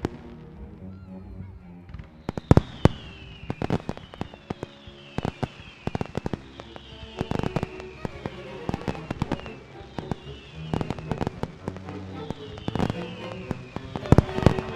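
Fireworks going off in many sharp bangs and crackles over music, starting about two seconds in. A short falling whistle repeats about once a second.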